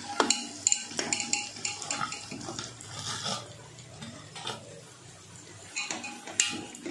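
Metal clinking and scraping in a pressure cooker pot: a steel plate knocking on the rim as sliced onions are tipped in, then a metal spatula scraping and tapping against the pot. The clicks come thick for the first few seconds, ease off, then pick up again with one sharp knock near the end.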